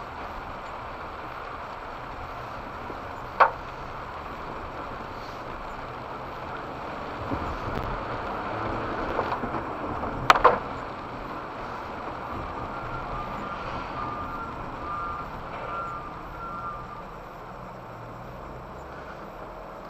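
Steady road and tyre noise from inside a driving Honda Crosstour, with two sharp knocks, one about three seconds in and a louder one about ten seconds in, and a short series of beeps about two-thirds of the way through.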